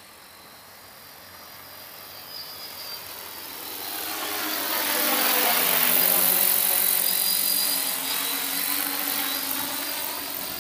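Large battery-electric multirotor agricultural spray drone flying past: the propeller drone grows louder as it approaches, peaks about six seconds in, then fades with a falling pitch as it moves away.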